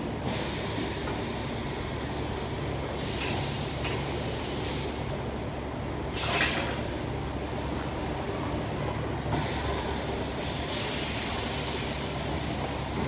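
Automatic tube-loading system of an HSG tube laser cutting machine at work: a steady machine hum broken by several bursts of hissing, the longest about two seconds.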